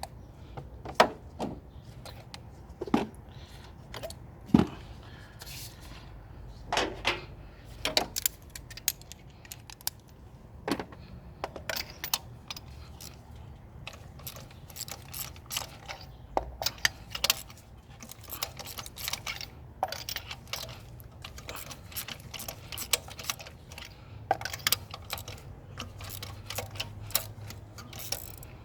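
Irregular metallic clicks and clinks of hand tools being handled and used, some loud and sharp, with a faint low hum underneath.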